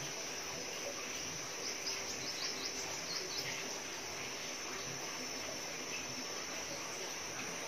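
Steady background hiss with a continuous high-pitched insect trill, and a cluster of short high chirps about two to three seconds in.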